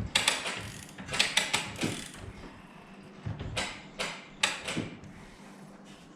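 Ratchet wrenches clicking in irregular bursts as they wind a Wayne Dalton Torquemaster Plus garage door's torsion springs up under tension.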